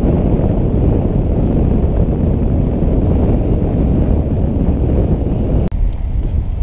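Wind buffeting the camera microphone as a bicycle coasts fast down a mountain road, a loud, steady low rushing. About five and a half seconds in, the rush drops suddenly.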